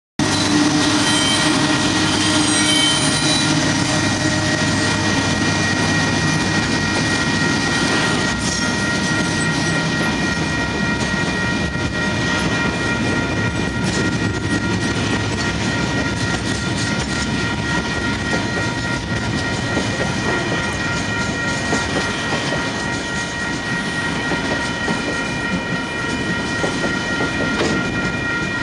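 Diesel freight train passing close by: the locomotives' engines run for the first few seconds, then loaded container wagons roll past with a continuous clatter of wheels over rail joints. A steady high-pitched ringing runs throughout.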